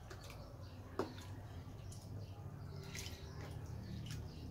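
Water poured from a plastic cup onto salted sliced red onions in a plate, then hands swishing and squeezing the onions in the water to rinse them: faint splashing and dripping, with a single sharp click about a second in.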